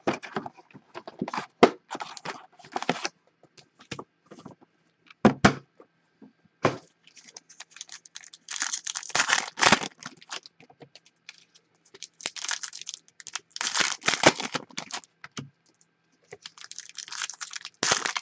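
Hands opening a box of trading-card packs: scattered clicks and taps of cardboard and wrapping at first, then four bursts of crinkling and tearing as foil card packs are ripped open.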